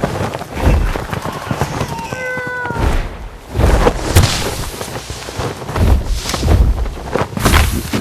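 Sound effects of an animal attack: repeated heavy thumps and rushing noise as animals scramble, with a short, slightly falling animal cry about two seconds in.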